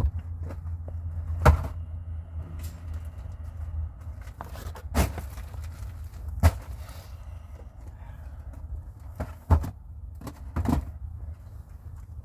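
Handling noise: a few scattered sharp clicks and knocks, about five, from small plastic toy pieces being handled, over a low steady rumble that is strongest in the first few seconds.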